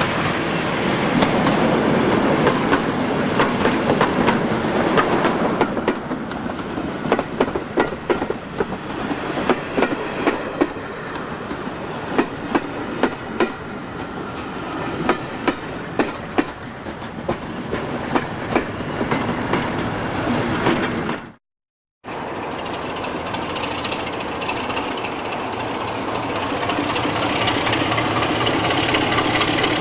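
A pair of Class 73 electro-diesel locomotives passes at speed with a rake of coaches, and the wheels clatter rhythmically over the rail joints as the coaches go by. After an abrupt cut, a Class 33 diesel's Sulzer engine runs steadily and grows louder as the locomotive moves off from the station.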